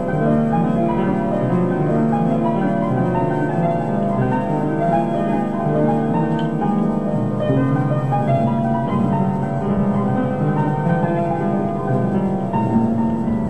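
Ambient black metal keyboard music: slow, layered piano-like keyboard notes held and changing roughly every second, with no drums.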